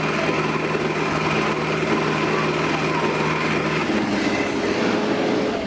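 Two Zetor tractors' diesel engines running hard under load in a tractor pull, a steady, loud drone. About four seconds in, the deep steady note drops away while engine noise carries on.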